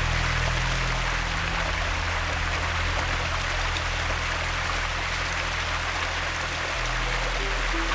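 Rushing water of a mountain stream and waterfall, a steady even hiss.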